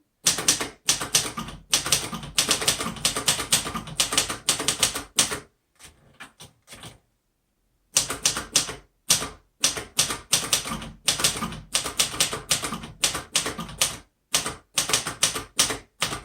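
1962 Royal Signet manual portable typewriter being typed on: quick runs of clacking keystrokes, with a pause of about two seconds halfway through.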